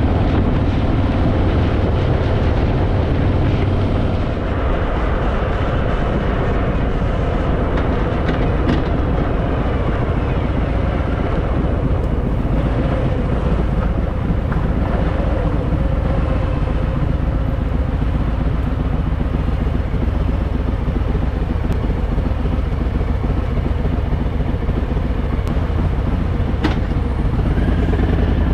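Harley-Davidson Fat Boy's V-twin engine running steadily under way, mixed with wind and road noise; the engine note rises near the end.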